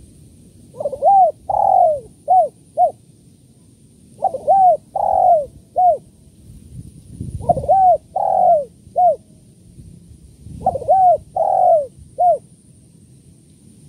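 Spotted dove cooing: four phrases, each a quick run of four or five short coos that rise and fall in pitch, repeated about every three seconds.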